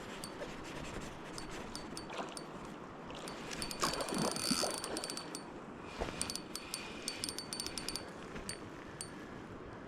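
A Shimano Sienna 2500 spinning reel's drag ticking in quick runs as a hooked trout pulls line, with a brief rush of noise about four seconds in.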